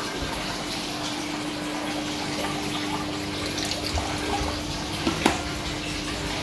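Aquarium filter and aeration running: a steady splashing and bubbling of water with a steady low hum beneath it. One sharp knock comes about five seconds in.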